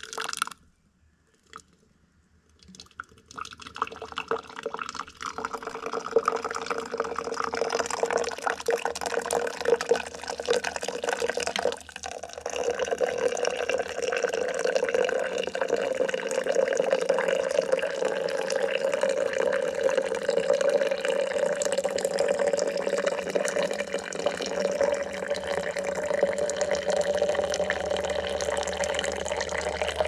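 Water poured from a kettle into a glass French press over coffee grounds: a steady splashing stream whose note rises slowly as the press fills. The pour breaks off briefly about a second in and resumes about two seconds later.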